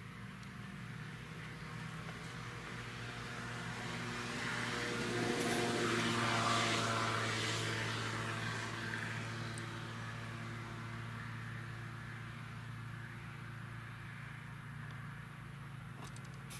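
Fendt 936 Vario tractor's diesel engine running steadily under load as it hauls a slurry tanker with a trailing-hose boom. In the middle a louder rushing sound swells and fades.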